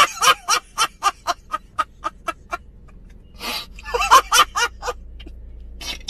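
A man laughing hysterically: a quick run of short, loud bursts of laughter, about five a second, that thin out after two and a half seconds, followed by a few more gasping laughs about four seconds in.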